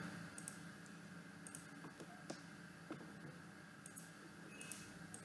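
A few faint, sharp clicks of a computer mouse, scattered over quiet room tone.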